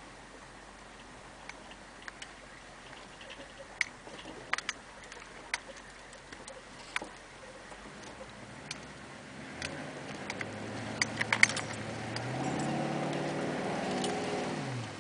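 Cab interior of a lifted 1991 GMC diesel Suburban on a rough trail: scattered sharp clicks and rattles over a low engine drone, then the diesel engine's note rises and grows louder over the last few seconds before dropping away sharply at the end.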